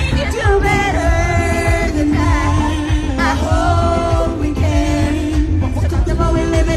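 Live pop concert music: a female singer singing held, melodic lines over a loud beat with heavy bass, as heard from the audience.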